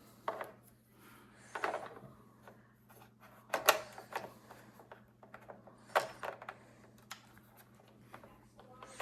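Scattered clicks, knocks and rustling of plastic 3D-printer parts being handled and fitted together during assembly, over a faint steady hum.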